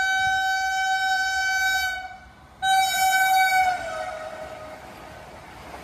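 Vande Bharat Express trainset's horn: one long, steady blast that stops about two seconds in, then a second shorter blast whose pitch drops as the train passes. After it comes the steady rushing noise of the train going by at speed.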